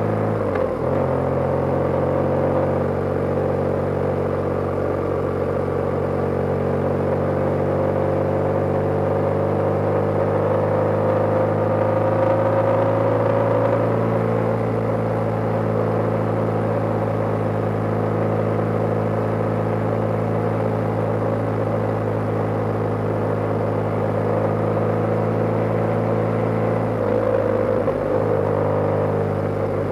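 BMW GS motorcycle engine running at a steady cruise, heard from the rider's seat with wind rushing past. The engine note rises slowly over the first dozen seconds and dips briefly about a second in and again near the end.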